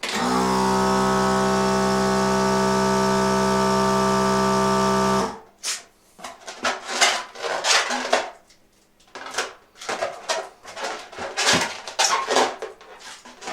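Electric balloon inflator pump running for about five seconds, filling a latex balloon: a steady motor hum that rises briefly in pitch as it starts, then cuts off sharply. Scattered clicks and rustling of the balloon being handled follow.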